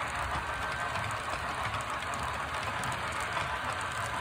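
Model railroad freight cars rolling steadily past on the track, wheels running with a continuous rumble and light clicking.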